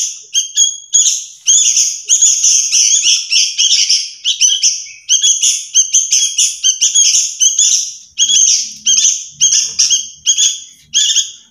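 Hand-fed sooty-headed bulbul (kutilang) fledglings giving a continuous string of loud, harsh begging chirps, about two to three a second.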